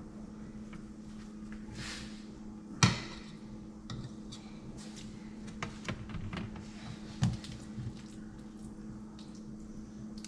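Scattered knocks and clinks of dishes and utensils being handled, one sharp knock about three seconds in louder than the rest, over a steady low hum.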